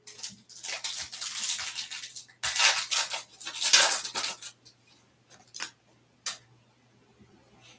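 Silver foil wrapper of a 2021 Topps Stadium Club Chrome baseball card pack crinkling and tearing as it is ripped open by hand, in two long spells of rustling. A couple of light taps follow near the end as the cards are handled.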